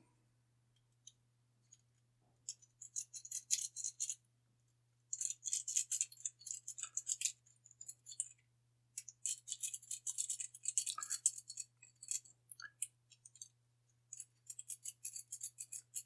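City-rake lock pick being scrubbed in and out of a Brinks 50 mm brass five-pin padlock under tension: quick, light metallic scratching and clicking in four bursts of a few seconds each. The lock does not open, since its spool security pins make it hard to rake.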